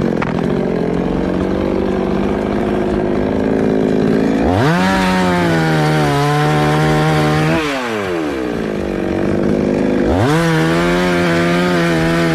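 Two-stroke chainsaw running, revved to full throttle twice, each burst held about three seconds with the pitch sagging slightly as the chain bites into wood, then dropping back down.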